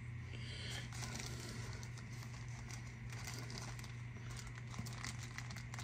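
Faint handling of small carburetor parts and a screwdriver on a workbench: light clicks and rustling over a steady low hum.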